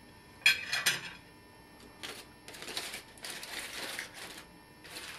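Two sharp clanks about half a second apart, as a kitchen utensil is set down on a hard surface, then a few seconds of rustling and crinkling of aluminum foil being handled.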